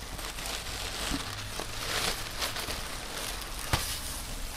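Plastic bag liner and newspaper packing in a cardboard shipping box crinkling and rustling as they are pulled open by hand, with a sharp click about three-quarters of the way through.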